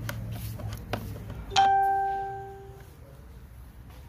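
A metal hand tool strikes something with a sharp clank about a second and a half in and rings with a bell-like tone that fades over about a second. A couple of light clicks come before it.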